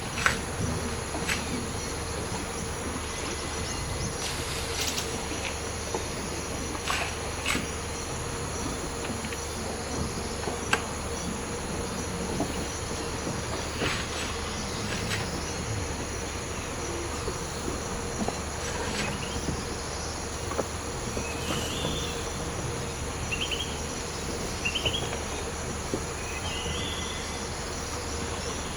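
Tropical rainforest insect chorus: a steady, high-pitched drone that doesn't let up. Scattered sharp clicks and snaps sound through it, and a few short rising chirps come near the end.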